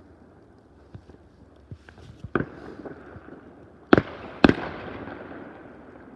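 Fireworks going off: scattered distant pops and crackle, a sharp bang a little over two seconds in, then two loud bangs half a second apart about four seconds in, with a rumbling echo fading after them.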